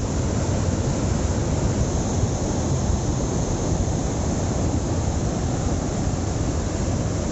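Fast-flowing flooded mountain river carrying mud and stones: a steady, loud rush of water with a heavy low rumble.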